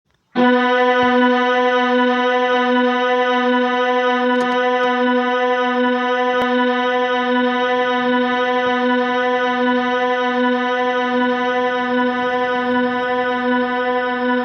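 A single organ-like drone note, held at one pitch without change, rich in overtones with a slight regular pulsing. It starts abruptly right at the beginning.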